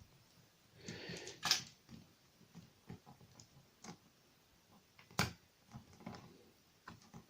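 Scattered light clicks and taps of small metal parts and tools being handled, with one sharper click about five seconds in.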